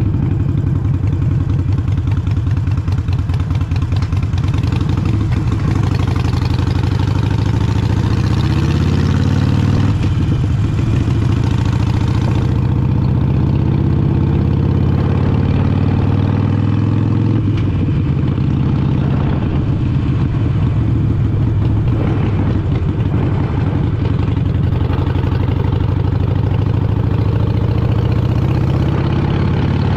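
Harley-Davidson Sportster Iron 883's air-cooled V-twin engine running steadily while riding, its pitch shifting a little at times as the throttle changes, with wind and road noise.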